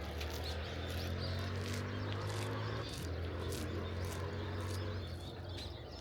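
A steady low mechanical hum that stops about five seconds in, with birds chirping faintly over it.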